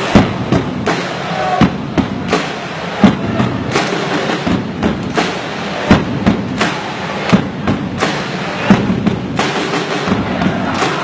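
Drums, bass drum among them, beaten with strong strikes every half second or so over a background of crowd voices, as in an ultras-style battle chant.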